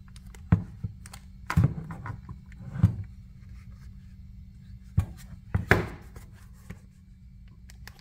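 Handling noise of a NOCO Boost XL GB50 portable jump starter: its case knocking and scraping on a wooden tabletop as it is picked up and turned over, in a series of separate thunks and clicks with a quieter stretch in the middle.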